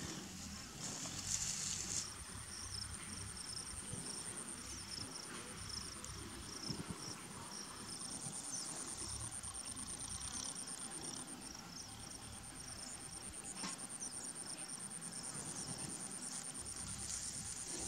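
Insects trilling in grass: a very high, rapidly pulsing trill that starts about two seconds in and breaks off briefly past the middle, over softer repeated chirps and a low rumble.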